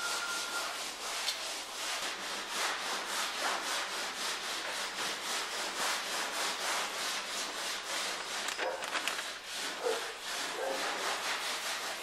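A pink cloth or pad rubbed briskly back and forth by hand over a filled and primed car body panel, in a steady rasping rhythm of about three strokes a second.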